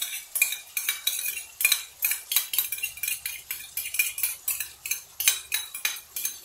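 Metal spoon clinking and scraping against a frying pan while mutton pieces are stirred with yogurt and spices: quick, irregular strokes, about three a second.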